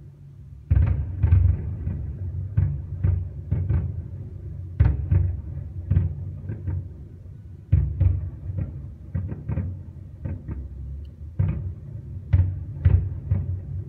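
Aerial firework shells bursting in rapid, irregular succession: deep echoing booms mixed with sharper cracks, several a second at the busiest moments, with a brief lull just before the first loud burst.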